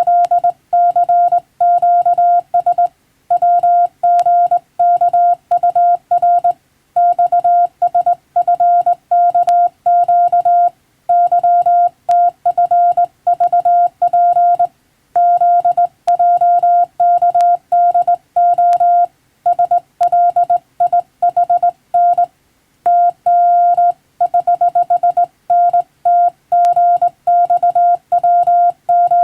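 Morse code (CW) as a single steady tone keyed on and off in dots and dashes, with short pauses between characters and words.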